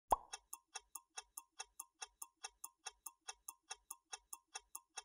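Clock-ticking sound effect counting down the answer time, ticking steadily about five times a second after one sharp hit at the start.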